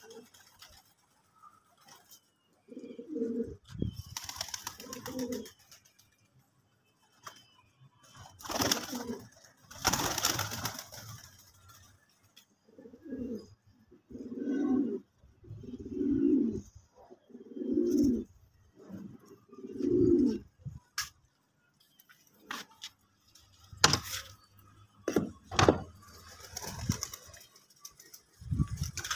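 Domestic pigeons, fantails among them, cooing: a run of low coos about every second or two. A few louder bursts of rustling noise and some sharp clicks come in between.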